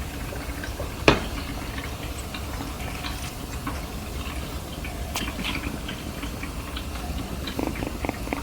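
Kitten purring faintly as a low, steady rumble, with one sharp click about a second in and a few small ticks and rustles after it.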